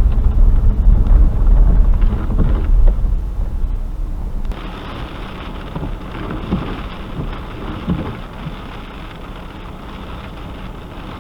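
Strong wind buffeting the microphone with a heavy low rumble for the first four seconds or so, over the steady wash of storm surf and waves.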